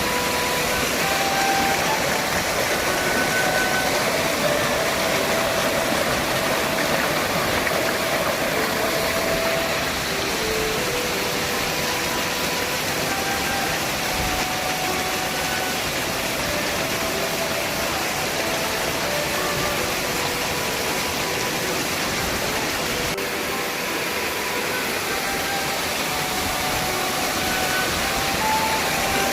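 Waterfall running heavy with rainy-season water: a steady, unbroken rush of falling water, with faint short high notes dotted through it.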